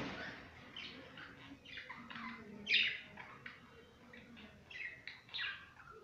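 Budgerigars chattering: a quick run of short chirps and warbles, the loudest chirp about three seconds in.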